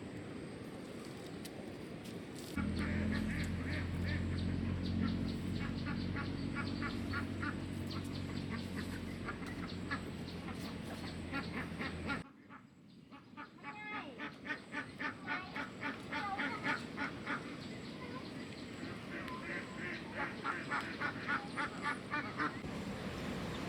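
A flock of domestic waterfowl calling in rapid runs of honks and quacks, in several bouts. Under the first half a steady low hum runs, then stops abruptly about twelve seconds in.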